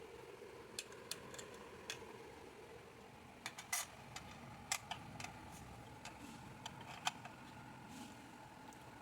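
A faint, steady hum from a running desktop PC's cooling fans, with about ten irregular sharp clicks and taps scattered over it.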